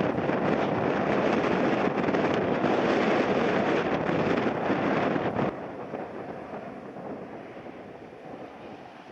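Heavy wind buffeting the microphone over the steady rush of a jet airliner's engines. About five and a half seconds in it drops abruptly to a quieter, thinner wind rush.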